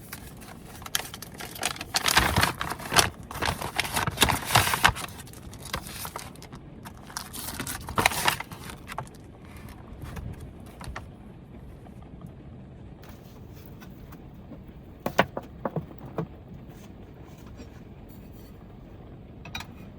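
Cooking things being handled: rustling, clinks and scrapes in three bursts, the longest in the first few seconds, over a steady low hiss.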